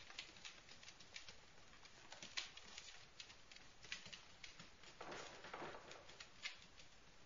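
Puppies' claws clicking and pattering on a wooden floor as they scamper about: faint, scattered, irregular taps. A brief breathy noise comes about five seconds in.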